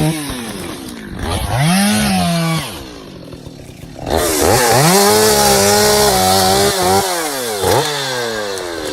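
Two-stroke chainsaw cutting logs: the engine revs up, sags in pitch as it bogs into the wood, then revs back up several times, dropping briefly to a low idle about three seconds in.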